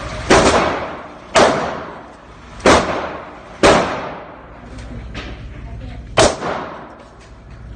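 Five gunshots, each a sharp crack with a fading echo: four unevenly spaced in the first four seconds and a fifth about six seconds in, with a couple of fainter pops between.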